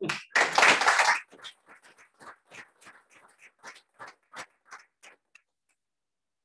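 Audience applause: a dense burst of clapping that thins to single claps, about three a second, dying out after about five seconds.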